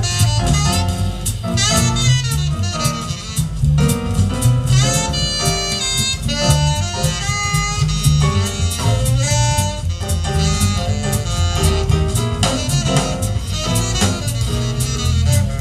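Live jazz band playing an up-tempo swing number, with a saxophone carrying quick melodic runs over upright double bass, drum kit and keyboard.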